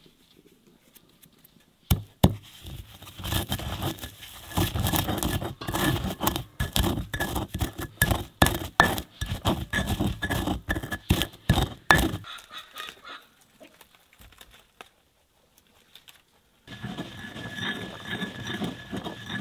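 Pestle pounding and grinding coarse salt, dried herbs and paprika in a mortar: a fast run of crunching knocks for about ten seconds, then it stops. A steady background hiss comes in near the end.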